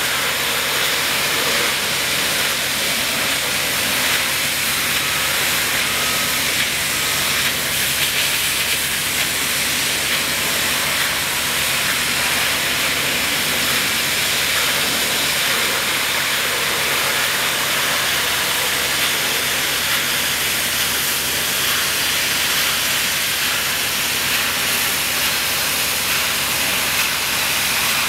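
Ultra-high-pressure water jets, at up to 20,000 psi, from an automated lance blasting the outside of a heat exchanger tube bundle: a steady hiss of spray against the tubes, with a low steady hum underneath.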